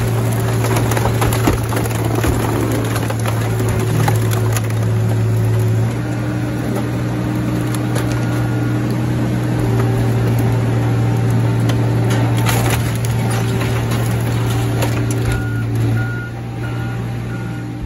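Car crusher running steadily under a hard machine hum, with scattered sharp cracks and creaks from the crushed car bodies in its chamber. A wheel loader's reversing beeper sounds near the end.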